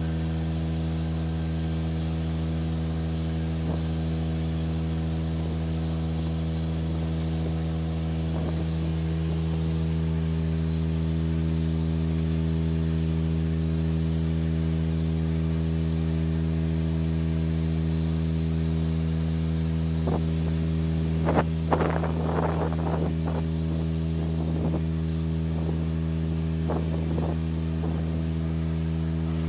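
Pressure washer running steadily, a constant mechanical hum with the hiss of the water jet spraying a concrete wall. A short run of sharp knocks and clatter comes about two-thirds of the way through, with a few more near the end.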